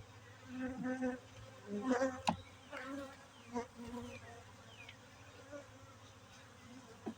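Honeybees buzzing around an open hive, with single bees flying close past the microphone in short, louder buzzes, several in the first few seconds. A sharp click comes about two seconds in.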